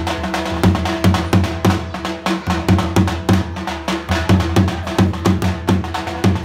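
Dhol drum beaten in a driving rhythm, heavy accented strokes about twice a second with lighter, quicker strokes in between.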